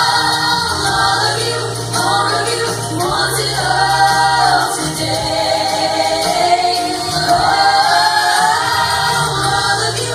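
Choir singing a gospel worship song in long held notes over a steady low instrumental backing.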